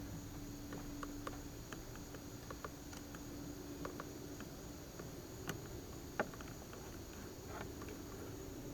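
Faint, irregular clicks and taps of a hand tool working the axle nut of a small plastic wheel as it is adjusted on its axle, with two sharper clicks a little past halfway. A faint steady hum runs under it for the first half.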